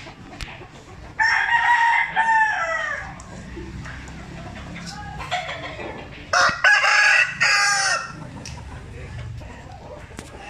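Gamefowl rooster crowing twice. Each crow lasts about two seconds and drops in pitch at the end; the second comes about six seconds in.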